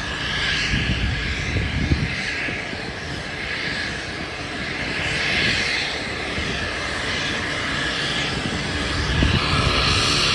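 Single-engine floatplane's propeller engine running as the plane moves on the water, swelling and easing a few times and loudest near the end.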